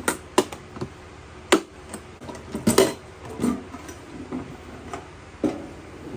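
Boxes of .22 rimfire cartridges being set and shuffled into an ammo can: irregular sharp clicks and knocks, with the loudest about one and a half and three seconds in.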